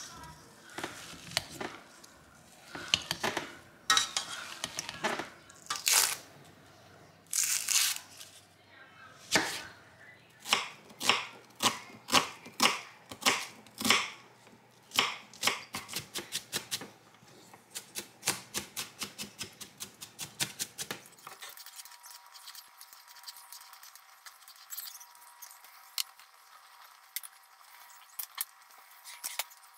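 A wire potato masher squashing boiled potato in a stainless-steel saucepan, with knocks against the pot. Then a knife chops onion on a wooden cutting board in quick, even strokes that speed up. In the last several seconds, a faint hiss of butter starting to melt in a saucepan.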